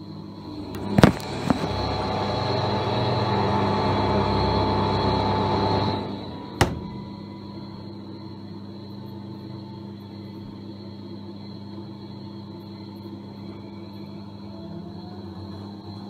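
Fisher & Paykel Pride top-loading washing machine running: a sharp click about a second in, then a loud rushing noise for about five seconds that cuts off suddenly, another click, and a steady low hum for the rest.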